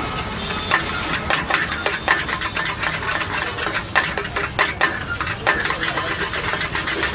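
Metal spatula scraping and clattering against a wok as food is stir-fried over a gas flame, with steady sizzling underneath. The scrapes come quickly and irregularly throughout.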